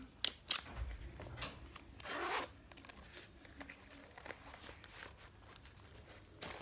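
Slim black nylon crossbody bag being handled: two sharp clicks just after the start as its plastic buckle is unfastened, a zipper pulled open about two seconds in, then soft rustling and small clicks of the nylon fabric as the bag is opened.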